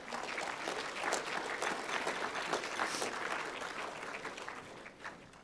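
Audience applauding, dense clapping that fades away near the end.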